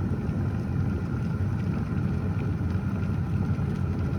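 Chefman 1.8-litre electric glass kettle boiling hard as it comes up to a full boil: a steady, dense bubbling of the water.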